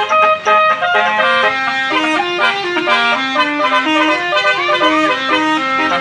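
Basuri telolet multi-tone musical horn on an odong-odong playing a loud melody: steady horn notes that change several times a second, several sounding together, with a few short pitch slides.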